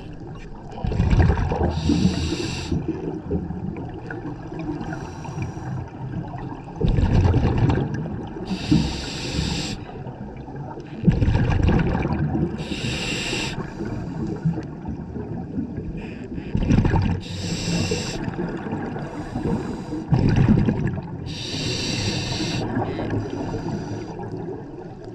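Scuba diver breathing through a regulator underwater: about five breaths, each a low rumble of exhaled bubbles followed by the hiss of an inhale through the regulator, repeating every four to five seconds.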